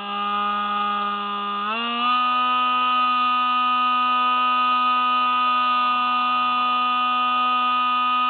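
Electric motor and propeller of a Spy Hawk FPV plane whining steadily in flight, heard through the onboard camera. About two seconds in the pitch rises and it gets louder as the motor speeds up, then it holds steady.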